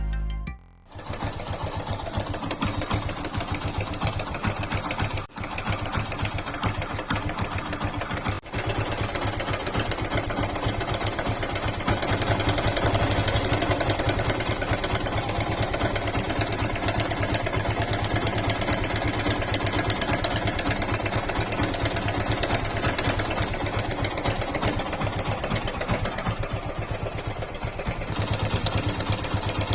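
Yamaha FZ single-cylinder motorcycle engine idling with a fast, even ticking rattle, the timing chain noise of a worn or slack chain tensioner.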